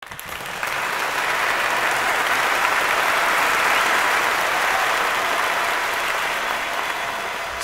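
Wedding guests applauding, the clapping coming in over the first half second and then holding steady.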